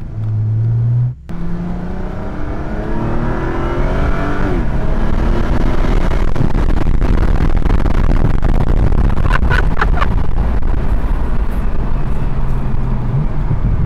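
Morgan Plus Six's BMW turbocharged 3.0-litre inline-six accelerating hard, its note rising in pitch from about two seconds in. Then heavy wind and road noise at speed in the open car, with the engine settling to a steady tone near the end.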